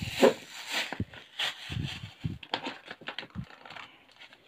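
Paper and plastic packaging of a Pokémon trading card blister pack being handled and peeled: irregular rustling and crinkling with a few dull knocks as the pack is pushed against the desk, while it resists being opened.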